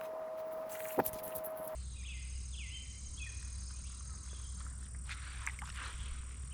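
Outdoor creek-side ambience: a steady high insect drone and a few short falling bird calls over a low steady rumble, with a sharp click about a second in.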